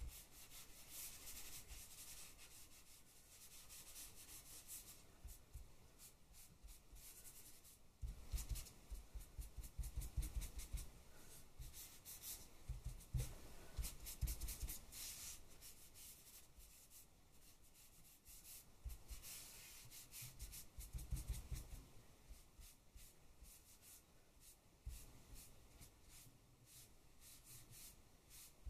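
Quiet scratchy rubbing of a pastel-like drawing stick and fingertips worked back and forth over a card print, in irregular strokes. Two spells of fast strokes, about eight and twenty seconds in, come with rapid dull knocks against the table.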